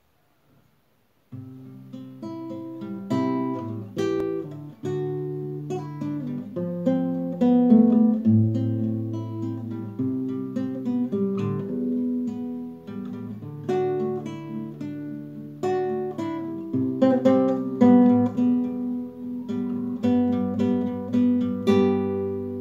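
Classical guitar played solo, plucked notes and strummed chords forming an instrumental introduction to a song, starting about a second in.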